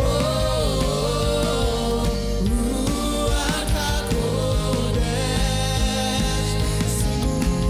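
Gospel worship song: a voice singing a held, wavering melody over steady band accompaniment.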